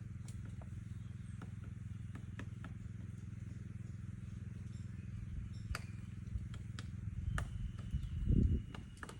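Woodpecker pecking at wood in scattered, irregular taps over a steady low drone. A thin steady tone enters about seven seconds in, and a loud low rumble comes near the end.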